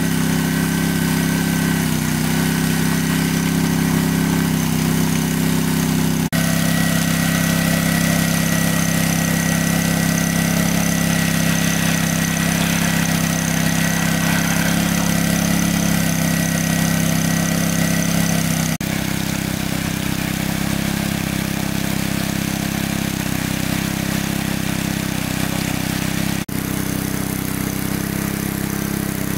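Engine of a large water pump running steadily under load, pumping water out of a lake. Its pitch and level shift slightly a few times.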